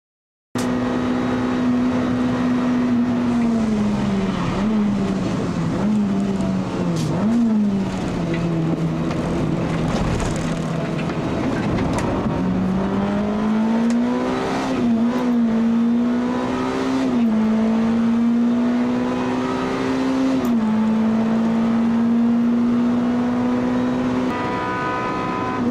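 Honda CR-X's ZC four-cylinder engine through a 5Zigen aftermarket exhaust, driven at full throttle on track. The note holds steady, wavers and dips, then falls sharply about 8 seconds in and again near 20 seconds as the car changes gear. It climbs again in between.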